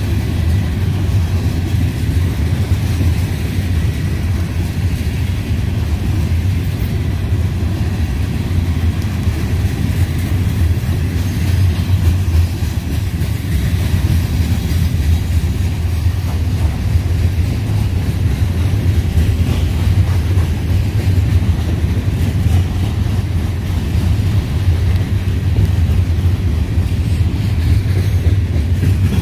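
Freight coal train rolling past, a steady loud rumble of its cars on the rails.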